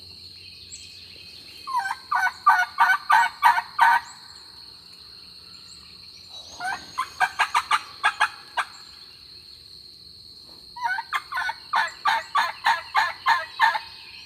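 Three series of hen-turkey yelps on a hunter's turkey call, each a run of sharp, evenly spaced notes about four a second, lasting two to three seconds with short pauses between the series. The calling imitates a hen to make a distant gobbler answer.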